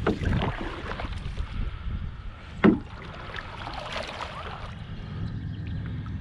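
Paddling a solo Old Town Penobscot 164 canoe: paddle strokes splashing and water trickling, over a steady low wind rumble on the microphone. One sharp, loud knock about two and a half seconds in.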